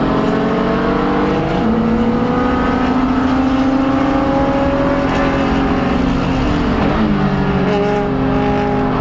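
Spec E46 BMW 330ci race car's M54 inline-six running hard through E36 headers and a Magnaflow exhaust, heard from inside the cabin. The engine note climbs slowly under acceleration, with breaks in pitch about a second and a half in and again about seven seconds in.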